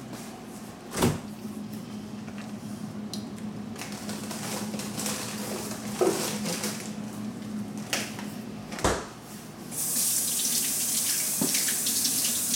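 A kitchen tap running into a stainless steel sink, coming on about ten seconds in with a steady, loud rush. Before that there are a few sharp knocks over a steady low hum.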